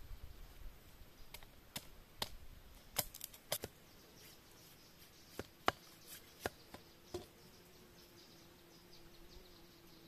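Long knife splitting and shaving a bamboo stick: about a dozen sharp cracks and knocks, some in quick pairs, over the first seven seconds. After that a faint steady hum.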